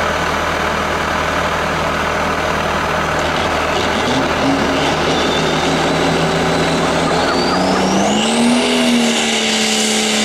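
A pulling tractor's diesel engine holds steady, then revs up about four seconds in and keeps climbing as the pull starts. A high whine rises steeply in pitch near the end as the turbo spools up under load.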